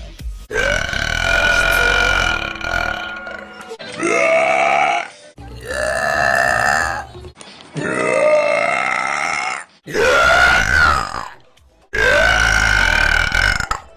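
A woman burping loudly: six long, pitched burps one after another, each about one to two seconds, with abrupt cuts between them.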